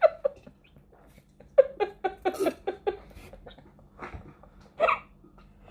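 Short, repeated bursts of a person's voice without words, in two groups, the second a single brief burst near the end.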